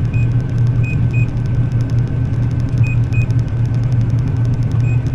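John Deere combine harvester running steadily with a low hum. A short high double beep repeats about every two seconds.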